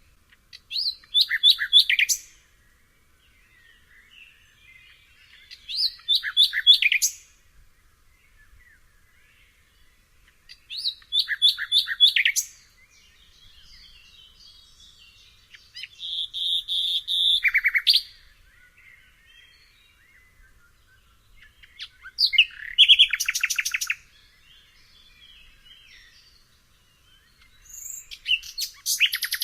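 Nightingale singing: six short phrases of rapid repeated notes, each lasting about one to two seconds, separated by pauses of several seconds that hold only faint, softer notes.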